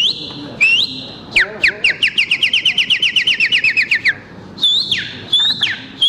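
A man imitating birdsong by whistling through his fingers: a few rising chirps, then a fast run of about eight falling whistles a second lasting a couple of seconds, then more swooping falling whistles.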